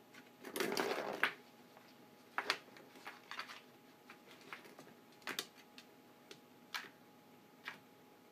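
A cat clawing at the corrugated cardboard pad of a circular scratcher toy: one longer scratching burst about half a second in, then a handful of short, sharp scratches spaced a second or so apart.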